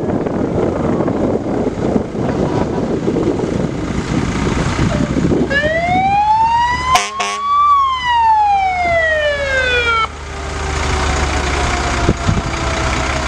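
Fire truck siren winding up once and sliding back down over about four seconds, over the rumble of idling fire truck engines. A brief sharp knock sounds near the top of the rise.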